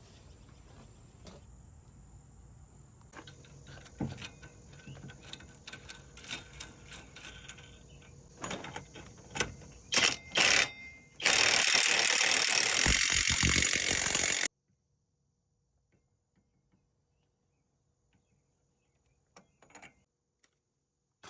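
Hand tools and metal parts clinking and rattling during work on a CV axle, with a few loud knocks. Then comes about three seconds of loud, dense noise that cuts off abruptly.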